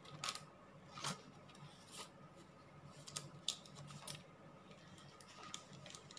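Faint rustling and several short, crisp taps of paper and card being handled: a paper tag slid into a clear pocket and a journal page turned.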